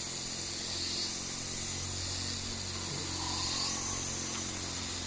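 Rainforest insect chorus: a steady high-pitched buzzing that swells and fades every second or two, over a low steady hum. A faint short call comes about three seconds in.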